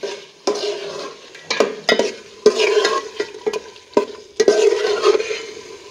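Meat being stir-fried in spiced masala in a karahi: a spoon scrapes and knocks against the pan in irregular strokes over a steady sizzle.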